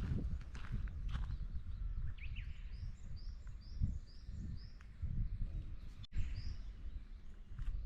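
A bird calling outdoors in a quick series of short, high chirps, about three a second, over a low rumble.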